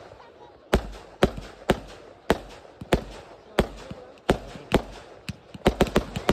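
Fireworks going off shot after shot as sharp bangs, about two a second, quickening into a rapid string of reports near the end.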